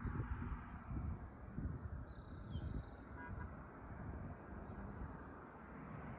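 Quiet outdoor background with the horn silent: irregular low rumbles over a faint steady hiss, with a brief high chirp about two seconds in.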